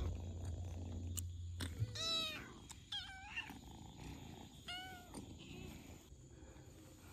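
Kittens mewing: three short, high-pitched mews over about three seconds, after a low steady rumble in the first two seconds.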